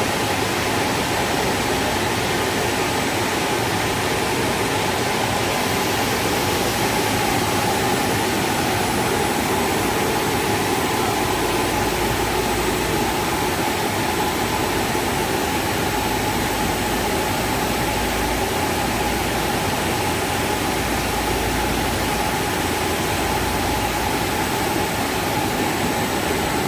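KS-FE55S twin-head HDPE blown film extrusion line running, with its film take-up rollers and winders: a steady, unchanging machine noise with a faint whine through it.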